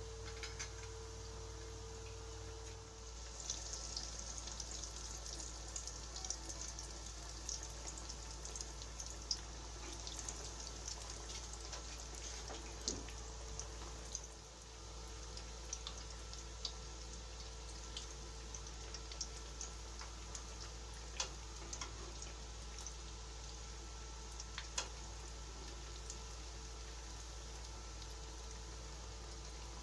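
Breaded patties deep-frying in a wok of hot oil: steady sizzling with frequent sharp crackles and pops.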